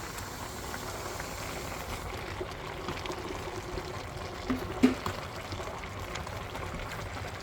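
Pot of pork and potatoes cooking on the stove, giving a steady hiss of liquid, with a utensil knock against the pot about two thirds of the way in.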